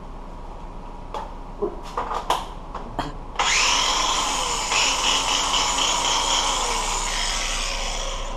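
A few light clicks and knocks, then about three and a half seconds in a power tool starts up, its whine rising as it spins up, and then runs steadily.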